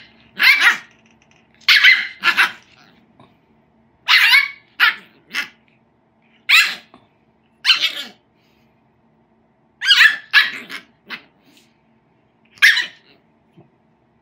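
Shiba Inu puppy giving short, high-pitched yips and barks, about a dozen in irregular clusters, while it rolls and wriggles on its back.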